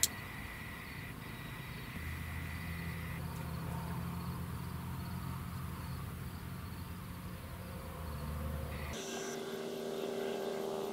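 Engine droning steadily as a low hum, its tone shifting about nine seconds in. A sharp click right at the start and a thin high whine during the first three seconds.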